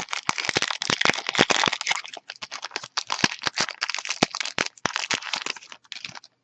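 Foil wrapper of a Yu-Gi-Oh! booster pack being torn open and crinkled in the hands: dense, irregular crackling that stops about six seconds in.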